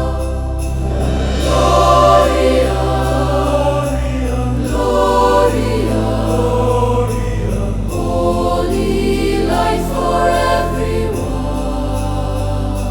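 Wordless choir singing sustained 'ah' vowels over held bass notes in slow sacred-style music.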